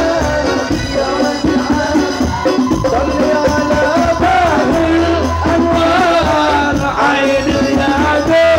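Live sholawat, an Indonesian Islamic devotional song: a lead voice singing a wavering melody over a band with rattling percussion and steady bass.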